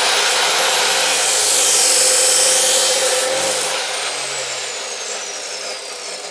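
DeWalt chop saw running at full speed, its router speed controller turned all the way up, cutting through 3/4-inch metal pipe with a loud high whine and grinding for about two seconds. About halfway through it is switched off and the whine falls steadily as the blade spins down.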